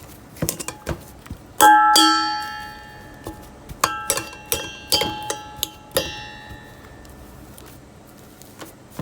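A metal bowl rings as a utensil knocks against it while boiled potatoes are mashed. There is one loud clang about a second and a half in, then a run of lighter knocks, each leaving the same ringing tone that fades within a second.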